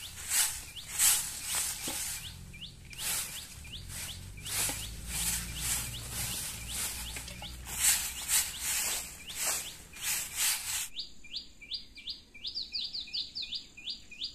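Long-bristled grass broom sweeping dry ground with a swish about every half second, birds chirping faintly behind it. About eleven seconds in the sweeping stops abruptly, leaving a rapid run of rising bird chirps, several a second.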